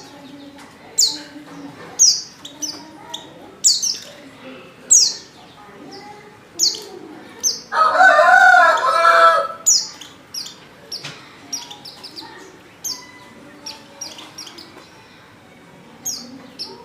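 White-eye (pleci) calls: short, high, sharply falling chirps repeated about once a second, a lure recording of a female white-eye. About eight seconds in, a rooster crows once, the loudest sound.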